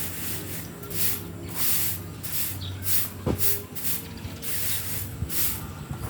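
A run of short hissing swishes, about two a second at uneven spacing, over a steady low mechanical hum.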